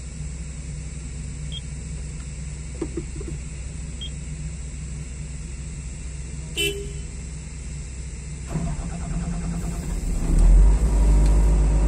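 Komatsu PC200 excavator's diesel engine running steadily at a low idle, with one short beep about six and a half seconds in. Near the end the engine gets much louder and deeper, as if throttled up.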